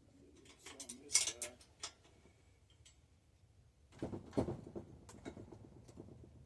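Clinks and knocks of tools and metal bicycle parts being handled, in two bunches: sharp clicks about a second in, then duller knocks with a light rattle about four seconds in.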